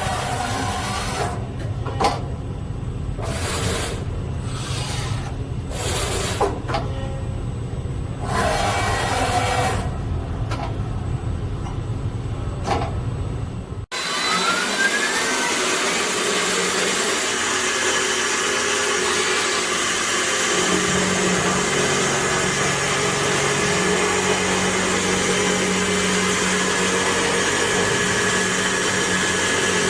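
Kotec Newrun 10DX H-beam drilling machine at work. First comes a low machine rumble with short, separate bursts of hiss. An abrupt cut about halfway through leads to a steady, even run with a held motor whine.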